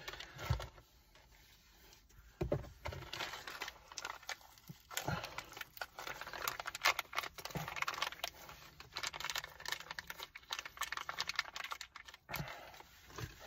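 Irregular small clicks, taps and rustling of hands and small parts working at a manual car's shifter base while new shifter bushings are fitted.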